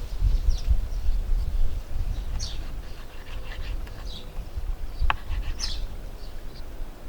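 Small birds chirping in short bursts over a low rumbling background noise, with one sharp click about five seconds in.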